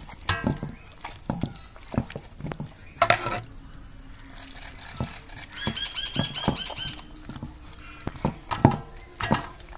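A hand squeezing and working wet ground-rice paste with water in a steel bowl: irregular wet squelches and slaps. About halfway through comes a quick run of about a dozen high chirps.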